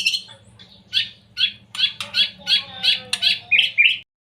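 Young white-rumped shama (murai batu) calling: a harsh rising note at the start, then a quick run of about eight repeated chirps, roughly three a second, over a faint low hum. The sound cuts off abruptly just after four seconds.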